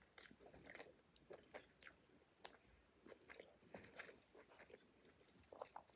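Faint chewing of a mouthful of banh mi sandwich, with soft, scattered mouth clicks and small crunches.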